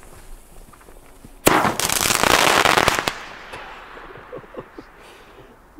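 Pyroland Crackling Beam firework bursting into crackle: a sudden loud mass of crackling about a second and a half in, lasting about a second and a half, then thinning out to scattered pops.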